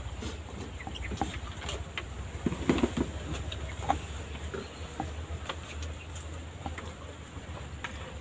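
Scattered small clicks and taps, with faint chicken clucking, over a steady low rumble.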